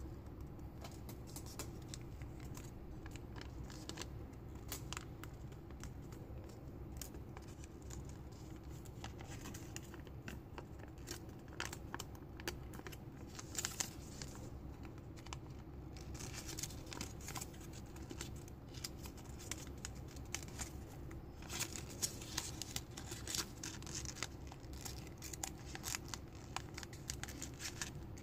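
Origami paper being folded and creased by hand: irregular crinkling and rustling, busier in the last third.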